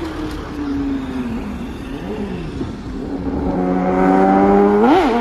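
Kawasaki ZX-10R inline-four superbike with an aftermarket full-system exhaust approaching fast at high revs. Its engine note climbs and grows louder over the second half, with a sharp rev spike about five seconds in as it comes by.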